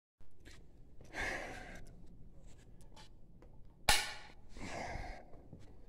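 A person's breathing and sighs, with one sharp knock about four seconds in.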